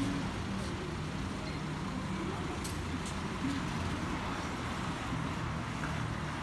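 Airbus A320 jet engines heard as a steady, even rush while the airliner flies over, with a low hum from road vehicles underneath.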